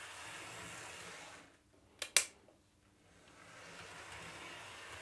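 Model Class 29 diesel locomotive running over a bulged 00 gauge test track, a faint steady whirr of its motor and wheels. About a second and a half in the sound breaks off briefly, with two sharp clicks close together, then the whirr resumes.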